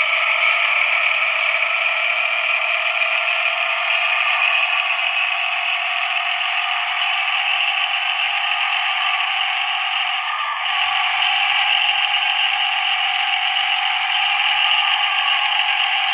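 A sound system under test playing a continuous, raspy, snore-like ('ngorok') sound with no bass, its pitch rising slowly throughout; a brief glitch about ten seconds in.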